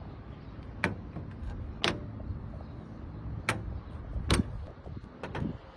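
Five sharp clicks and knocks as a Lotus sports car's boot panel is unlatched and handled, over a steady low background rumble.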